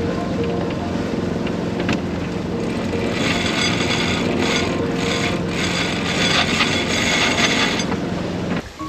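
Sailboat under way, with a steady low hum of its inboard engine under rushing wind and water noise. The rushing grows louder and hissier from about three seconds in and breaks off sharply just before the end.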